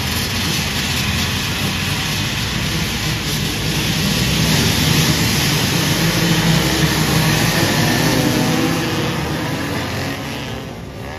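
Several motorcycle engines running and revving together on a scramble track. The sound swells to its loudest about halfway through and fades away near the end.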